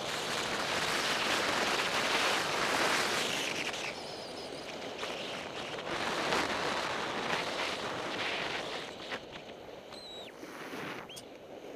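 Skis sliding and carving over packed groomed snow: a hiss that swells and eases with each turn, mixed with wind on the camera microphone. It quietens after about nine seconds as the skier slows.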